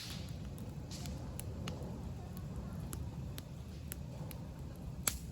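Wood campfire crackling, with scattered sharp pops and a louder pop about five seconds in, over a low steady rumble.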